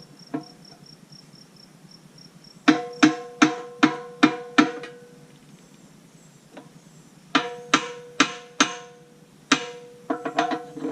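Hammer blows on a steel pin, each strike ringing metallically at the same pitch, driving a bucket pin into a backhoe's linkage: a run of five even blows, a pause, four more, a single blow, then a quicker flurry near the end.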